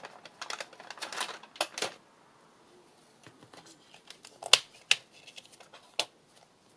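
Paper rustling and handling of a journal page while a rubber band is stretched around it, then three sharp snaps in the second half as the elastic is let go against the page.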